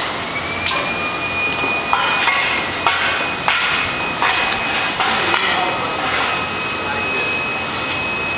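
Metal being struck again and again: sharp clinks, roughly one every half second to a second, each leaving a high ringing tone.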